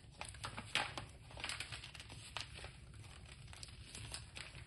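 Paper crumpling and crackling as scraps are thrown onto a small fire, with irregular rustles and one sharp crackle just under a second in.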